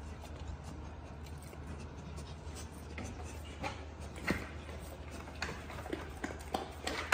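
An XL American Bully dam in labor shifting and licking in a plastic whelping pool. Soft scattered clicks and rustles grow more frequent from about three seconds in, over a low steady hum.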